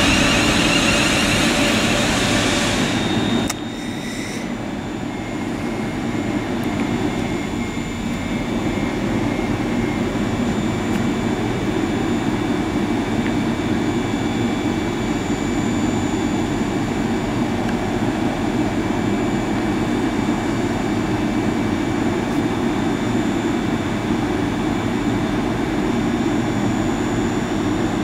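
Class 380 electric multiple unit: loud running noise of the train close by, which cuts off abruptly about three and a half seconds in. Then comes a steady electric hum with a thin, high whine.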